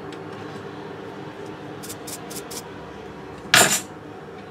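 Jeweller's bench work on a pendant clamped in a steel setting block: four light, quick metallic ticks about two seconds in, then one short, loud scrape-like burst over a steady low hum.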